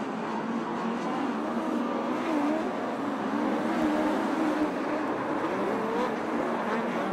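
Several open-wheel dirt-track race car engines running together, their pitch rising and falling as the cars accelerate and back off around the oval.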